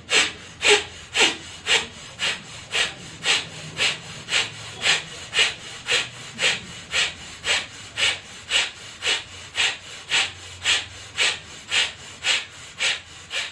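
Bhastrika pranayama (bellows breath): a woman's rapid, forceful breaths through the nose, about two a second in a steady rhythm, each a short sharp puff of air.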